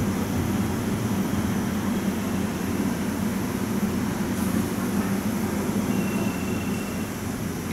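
JR 381 series electric limited express standing at the station platform, a steady low hum from the train's running equipment.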